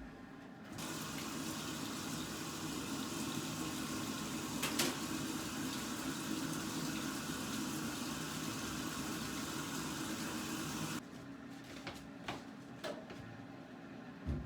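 Water running from a tap into a sink for about ten seconds, turned on just after the start and shut off abruptly, with a sharp clink partway through; a few light clinks follow once the water stops.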